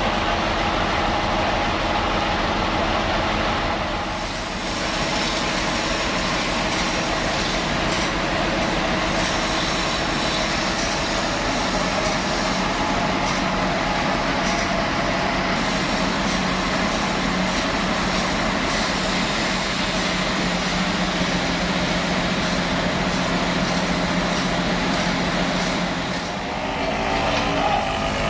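Band sawmill running steadily, its machinery giving a continuous mechanical hum with held tones while it cuts timber. The sound dips briefly twice, and its pitch shifts near the end.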